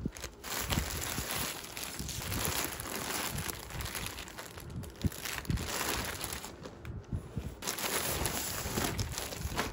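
Plastic mailer bag and clear plastic garment bags crinkling and rustling as hands unpack clothes, with the soft brush of a knit sweater and scattered sharp crackles of plastic.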